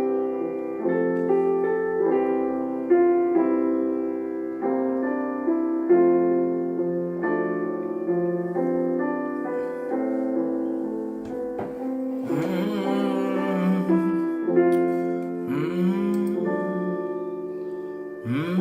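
Slow, soft piano or keyboard music holding sustained chords that change every second or so. A voice sings briefly over it twice in the second half.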